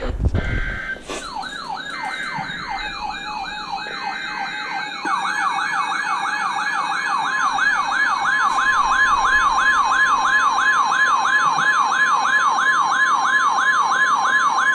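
Weather radio alert tones. A siren-like tone sweeps down again and again, about three times a second, starting about a second in. From about five seconds in, a steady long tone sounds with it: the NOAA Weather Radio warning alarm tone that comes before a new warning.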